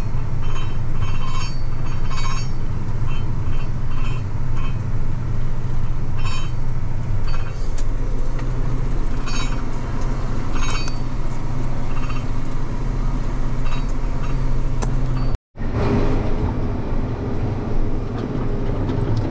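Large farm tractor's diesel engine running steadily under load, with light rattling now and then. The sound breaks off for a moment about fifteen seconds in, then carries on.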